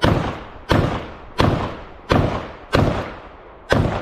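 Gunshots from a firearm on a shooting range: six shots, mostly about 0.7 seconds apart with a slightly longer pause before the last, each with an echoing tail.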